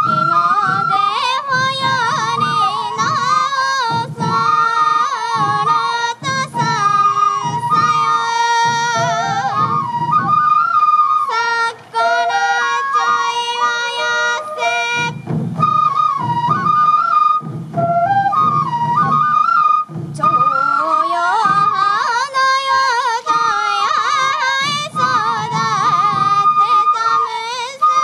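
Traditional Morioka sansa-odori music: a Japanese bamboo transverse flute plays a bending, ornamented melody over the steady strokes of many sansa taiko drums beaten by the dancers.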